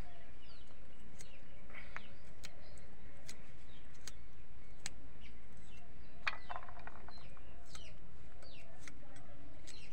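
Green beans being cut on a boti blade, with a sharp click every second or so as pieces snap off. Birds chirp and a chicken clucks in the background.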